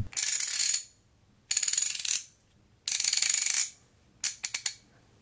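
Vintage Rahsol (Gedore) half-inch ratchet's pawl clicking rapidly as the handle is swung back and forth. It makes three runs of fast ticks with short pauses between, then a few separate clicks near the end.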